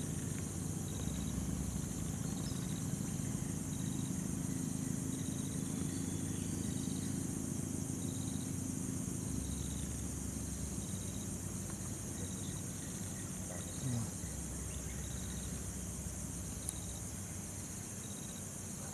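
Outdoor tree-canopy ambience: insects shrilling steadily in a high, finely pulsing band, with a short high note repeating on and off, over a low steady hum.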